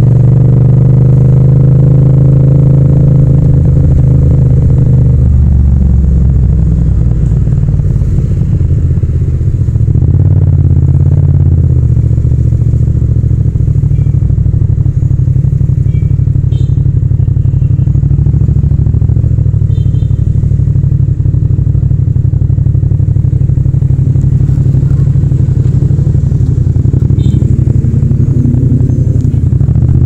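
Yamaha MT-07's parallel-twin engine running under the rider: its pitch rises for the first couple of seconds as the bike pulls along, holds, then drops back to a steady low-rev running sound as it rolls through slow traffic.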